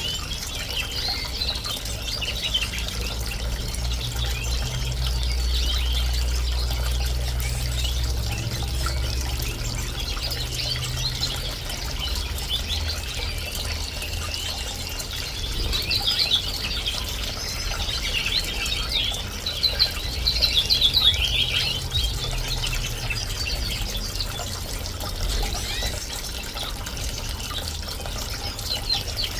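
Bird-bath fountain splashing and trickling steadily, with a low hum underneath, while canaries and finches chirp and sing over it. The bird song is busiest about two-thirds of the way through.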